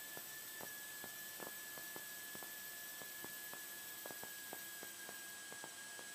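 Faint steady electrical hiss and hum with a thin, high steady whine and scattered soft clicks: line noise on the recording feed, with no engine or voices coming through.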